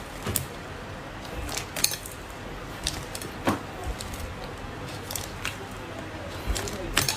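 Slime being handled, with scattered sharp clicks and pops every second or two over a low, steady background.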